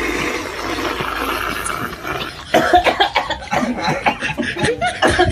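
A person coughing repeatedly, the coughs starting about halfway in.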